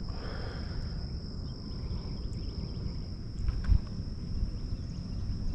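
Insects droning in one steady high note, over a low rumble like wind on the microphone, with one short thump a little past halfway.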